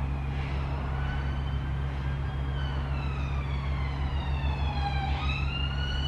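Emergency vehicle siren wailing: its pitch rises slowly, falls more slowly, then starts rising again near the end.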